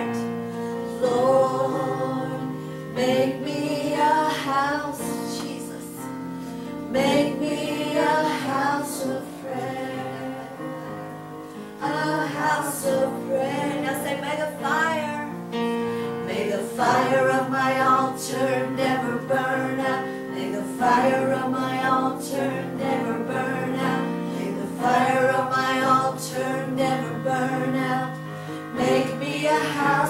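A woman's voice singing a gospel worship song over steady held instrumental accompaniment.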